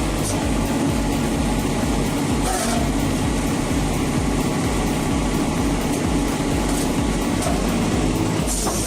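Heavy diesel machinery running steadily with a deep engine rumble, and occasional metallic clanks.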